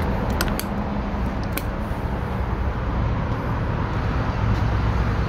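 Steady low motor hum under outdoor background noise, with a few light clicks in the first two seconds.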